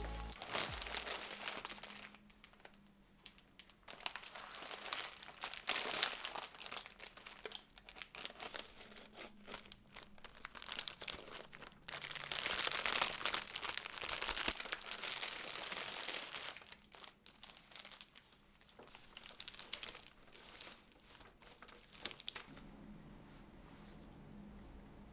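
Wrapping being crinkled and rustled by hand in irregular bursts, with some tearing sounds, loudest around the middle and quieter near the end.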